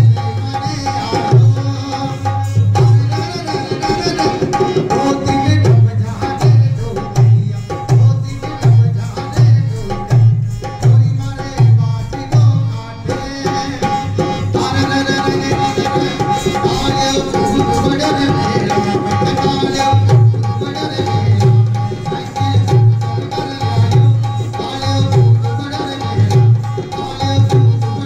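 Live Rajasthani Kalbeliya folk music: a barrel hand drum beats a steady rhythm a little faster than once a second under a held harmonium note and melody. The deep drum strokes drop back for several seconds midway, then return.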